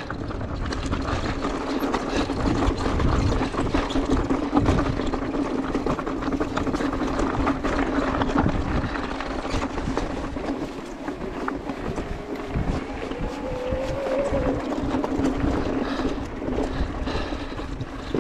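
Electric mountain bike rolling down a loose, rocky trail: tyres crunching over stones, with the frame and parts rattling on every small impact. A steady whine runs underneath and rises in pitch about thirteen seconds in.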